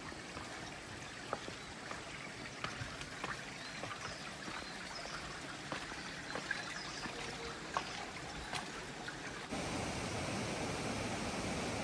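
Steady running water of a stream, with scattered footsteps on a stone path. About two seconds before the end the water sound jumps suddenly louder and fuller.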